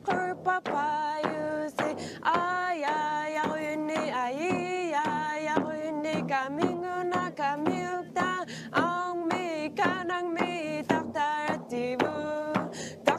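Background music: a voice singing a melody of held notes that waver in vibrato, with short percussive taps between the notes.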